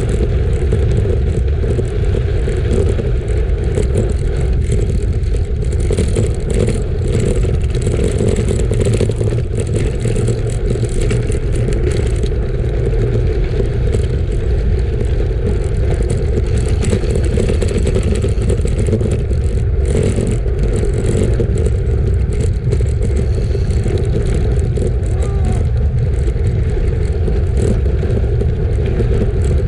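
Steady wind buffeting on the microphone and the rumble of bicycle tyres rolling at speed, with scattered small ticks and clatter from the rough surface.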